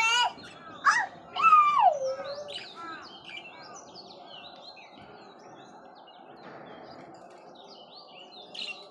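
A group of small birds chirping continuously in quick, high, overlapping chirps. A few louder sliding calls come in the first two seconds, one falling in pitch.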